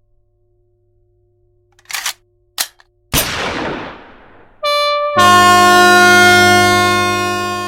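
A run of comic sound effects: two short noisy bursts, a sudden crash with a hiss that fades over about a second, a brief pitched tone, then a loud sustained chord that slowly dies away.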